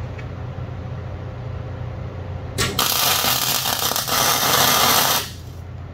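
MIG welder arc crackling and hissing for about two and a half seconds as a tack weld is laid on the steel axle truss, starting a little before halfway and cutting off near the end. The shielding gas is turned off during this weld, which leaves it porous.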